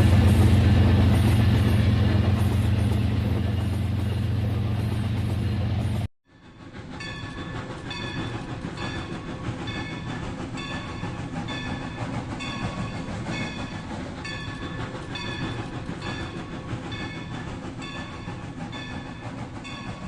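Battery-powered toy train running on its plastic track. A loud, steady low drone for about six seconds cuts off abruptly. After that comes a quieter run of evenly repeating clicks over a motor whir.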